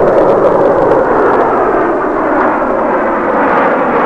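Loud, steady jet engine noise from a formation of F-4 Phantom fighters flying past, their J79 turbojets trailing smoke; the sound starts abruptly.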